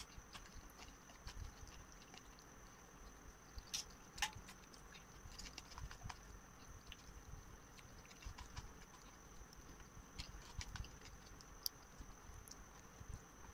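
Eating by hand from a paper plate: fingers mixing rice and curry on the plate and mouth chewing, heard as scattered small clicks and wet smacks. A faint steady high whine lies under it.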